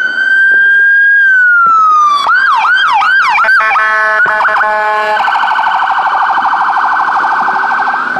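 An ambulance's electronic siren, cycling through its tones as the ambulance drives past on a call. First a slow wail rises, holds and falls; then come about three quick yelps and a short steady blaring tone; from about five seconds in, a fast warble runs to the end.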